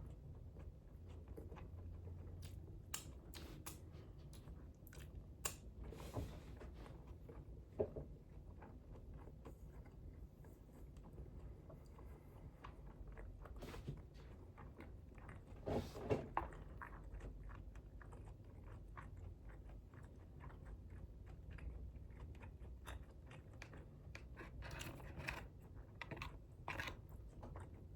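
A person chewing and biting food close to the microphone: faint, irregular crunches and wet mouth clicks, with a louder bite about sixteen seconds in and another cluster near the end.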